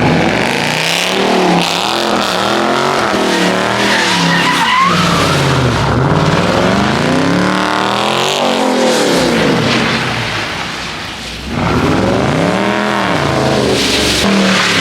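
A car's engine revving up and down over and over as it slides in circles on wet pavement. The revs drop away about eleven seconds in, then climb hard again.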